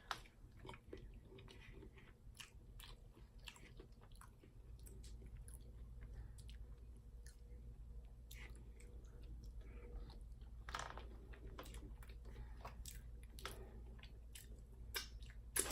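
A person chewing and biting food, with many small, irregular, quiet mouth clicks and smacks.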